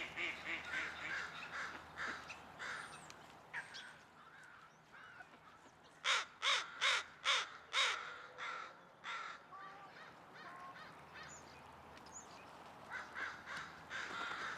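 A flock of American crows cawing, many calls overlapping. About halfway through, a nearer crow gives a run of about six loud caws in quick succession, and quieter caws carry on before and after.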